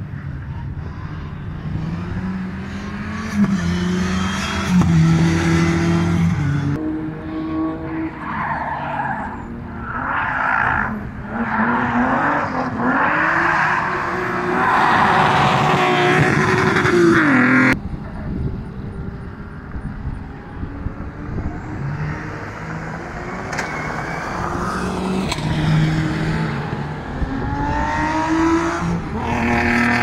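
Rally car engines revving hard, pitch rising and falling through gear changes and lifts, with tyres squealing and scrubbing as the cars slide. Several cars are heard in turn, the sound changing abruptly at about 7 and 18 seconds in.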